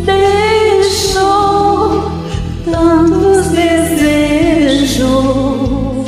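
Music: a slow romantic ballad, with a voice singing long notes that glide from pitch to pitch over a steady backing track.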